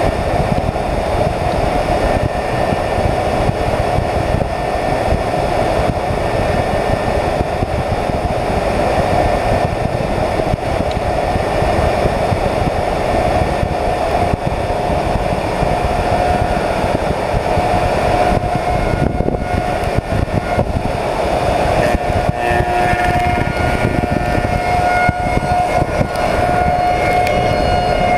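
Slab surfacing machine's cutter head with six insert knives running and cutting across a willow slab: a dense, steady machine noise with a constant whine, the whine growing clearer and sharper in the last few seconds.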